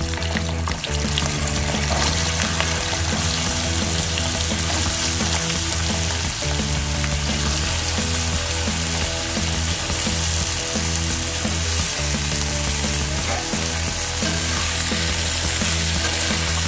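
Cubed raw potatoes sizzling in hot mustard oil in an aluminium kadhai: a steady frying hiss.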